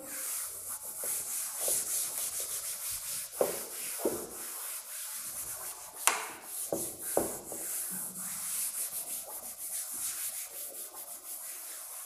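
Chalk being wiped off a chalkboard in quick repeated back-and-forth strokes, a steady scratchy rubbing with a few sharper knocks against the board along the way.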